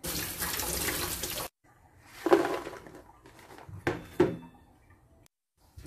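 Tap water running into a plastic colander of red chilies in a stainless steel sink, stopping suddenly after about a second and a half. Then a few short knocks and clatters of the colander and plate against the sink.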